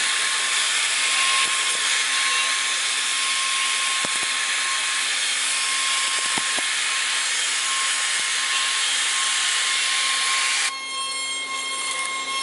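CNC router spindle running at a steady whine while its end-mill cutter carves relief into a wooden panel, with a dense hiss of wood being cut. Near the end the cutting hiss drops and turns rougher while the spindle tone carries on.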